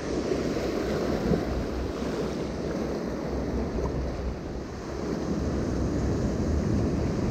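Sea surf washing against the shore rocks in heavy swell, a steady wash of water, with wind buffeting the microphone as a low rumble.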